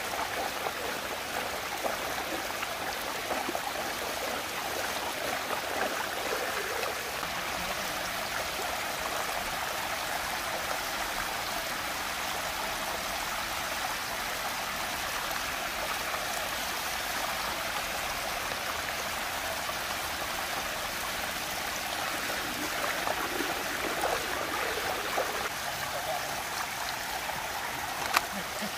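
Steady rushing of water swirling down a whirlpool vortex, with a single sharp click near the end.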